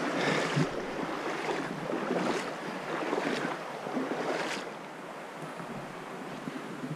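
Shallow stream water rushing over a stony riffle, with splashes about once a second as a person wades upstream towing a kayak. Near the end it eases to a quieter, even flow.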